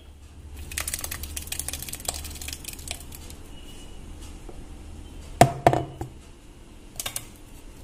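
Ground tomato gravy poured from a stainless-steel mixer-grinder jar through a plastic strainer into a pan: a run of quick clicks and scraping for the first few seconds, then two sharp clanks about five and a half seconds in and a lighter pair near the end.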